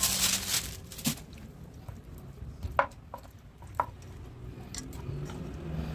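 Hands handling raw meat and stuffed bitter melon pieces: a brief squishy rustle at the start, then a few light, separate clicks and knocks.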